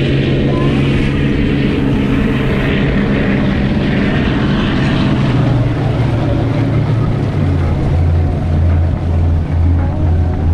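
Powerboat engine running steadily at speed, a low hum under the rush of wind and water, wavering in level near the end.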